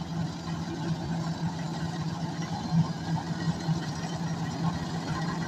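Combine harvester's diesel engine and machinery running steadily, with a constant low hum.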